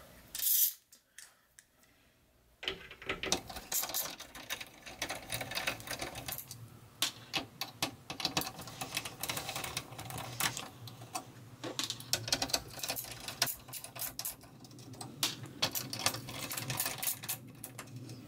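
A screwdriver backing out the screws that hold a TV power supply board to its metal chassis: a fast run of small clicks and rattles with a low hum underneath. It starts a couple of seconds in and runs on to the end.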